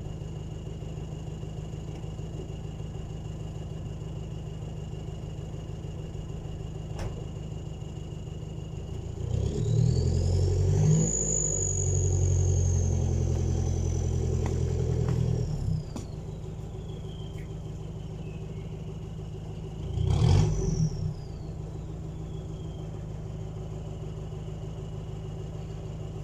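Mitsubishi L200 pickup's diesel engine idling, then revved hard for about six seconds as it strains against a tow strap to drag a tree stump out of the ground. A high whine rises with the revs and fades away after them. A second short burst of revs comes about two-thirds of the way through.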